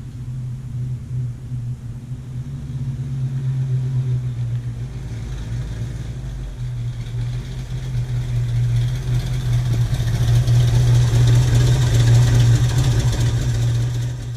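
1966 Mustang coupe's V8, a 289, running at low speed with a steady low exhaust hum. It grows louder as the car rolls up toward the listener.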